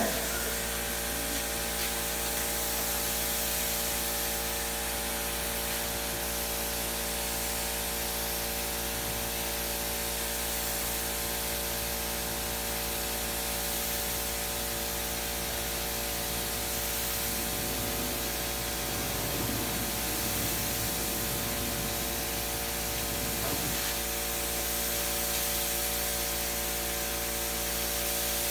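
Gravity-feed air spray gun hissing steadily as it sprays paint, over a steady hum.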